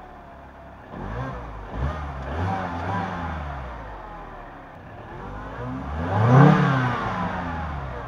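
Mini One 1.6-litre naturally aspirated four-cylinder engine being revved from idle: a few short throttle blips in the first three seconds, then one bigger rev about six seconds in that falls back to idle. The old, dirty intake air filter is still fitted.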